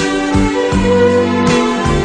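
Instrumental break in a slow love ballad, with no singing: held bass notes and chords that change every half second or so.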